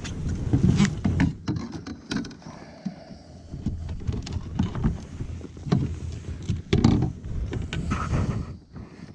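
Irregular knocks and bumps on a fishing kayak, over a steady low rumble.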